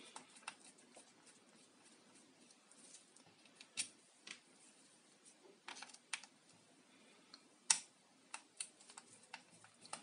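Scattered faint clicks and scrapes of a screwdriver tip on the hard plastic of a hair dryer's opened handle as the power cord's plastic grip is worked loose, with the sharpest click about three-quarters of the way in.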